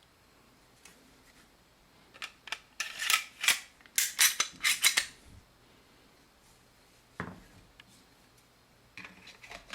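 Metal clicks and scrapes of a Glock 21 pistol being reassembled by hand, with its parts sliding and snapping together. There is a quick run of sharp clicks about two to five seconds in, a single duller knock around seven seconds, and a few more clicks near the end.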